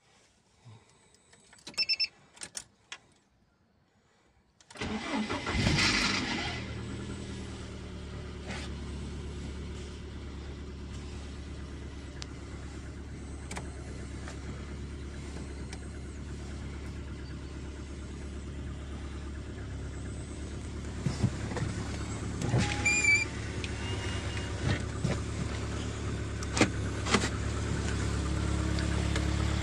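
Lada Kalina's freshly repaired engine cold-started: a few clicks and a short beep as the ignition is switched on, then about five seconds in the engine starts, runs loud for a second or so and settles into a steady idle. A few light knocks and a brief squeak sound over the idle in the second half.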